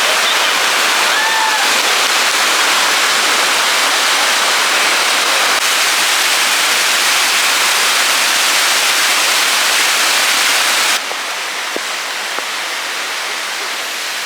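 Waterfall's rushing water, a loud steady hiss of falling water. About eleven seconds in it cuts abruptly to a quieter, steady rush.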